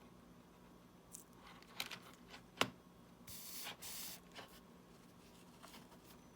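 Small clicks and taps of hand tools working on a smartwatch's tiny parts, with one sharper click near the middle. Right after it come two short hisses, one after the other.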